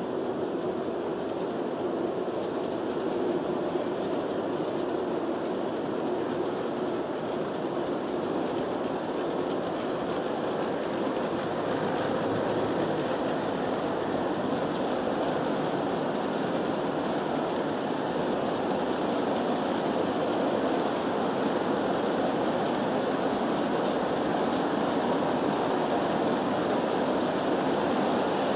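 G-scale model train cars rolling past on metal track: a steady rumble and clatter of wheels on the rails, growing slightly louder.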